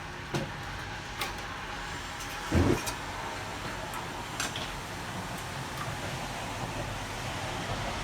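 Propane patio heater being lit with a match: the gas catches with a short, low whoomph about two and a half seconds in, over a steady rush of gas and burner noise. The heater is lit by hand because its igniter has failed and the tilt switch has been bypassed.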